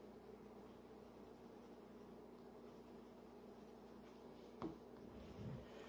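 Faint scratching of a colored pencil on paper while drawing, over a steady low room hum. There is one soft click about four and a half seconds in.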